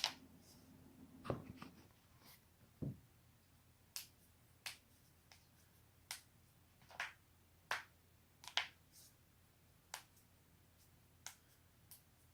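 Neck and back joints cracking, about a dozen sharp pops at roughly one a second, some coming in quick pairs.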